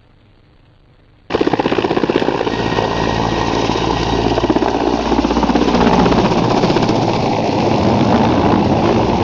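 Helicopter rotor chopping loudly with a rapid, even beat, starting abruptly about a second in and holding steady.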